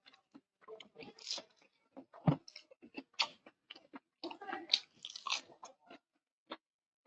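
A person eating close to the microphone: irregular chewing and crunching of fried food, with one sharp, louder bite a little over two seconds in.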